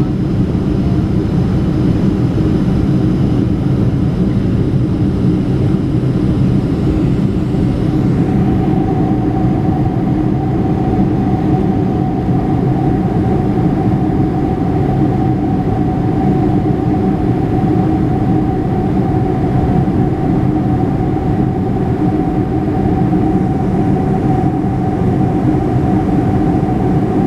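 Cabin noise of a Boeing 747-400 in flight: a steady drone of engines and rushing air heard from a window seat, with a steady whine joining in about eight seconds in.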